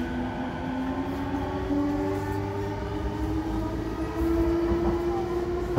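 Interior running sound of a JR East E233-8000 series motor car: its Mitsubishi IGBT-VVVF inverter and traction motors give a whine that rises steadily in pitch as the train gathers speed, over a steady rumble of wheels on rail.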